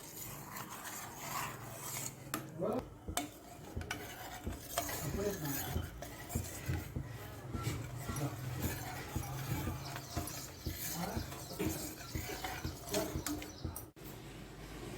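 A metal spoon stirring and scraping in a cooking pot, with many irregular light clinks and knocks over a steady low hum.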